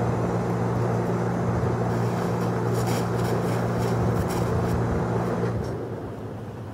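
A steady low motor hum, like a vehicle running, that drops away about five and a half seconds in. In the middle come a few seconds of crinkling as the horse walks across a plastic tarp.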